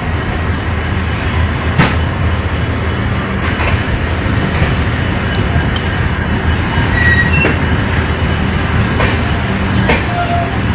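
Passenger train running along the track, heard on board: a steady rumble with a few sharp clicks and brief faint high squeaks from the wheels and rails.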